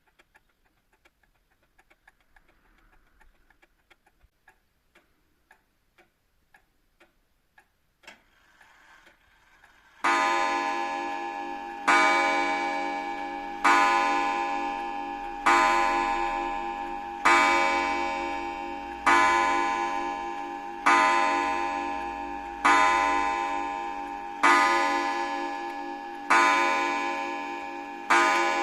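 Aichi Tokei pendulum clock ticking faintly, then, after a click, striking the hour on its bell: eleven strokes just under two seconds apart, each ringing on and fading. It strikes eleven, which the owner judges a little late, the clock running slightly slow.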